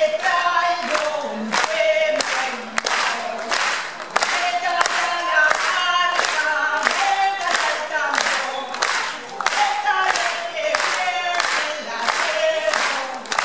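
A crowd singing together, with clapping in time at about two claps a second.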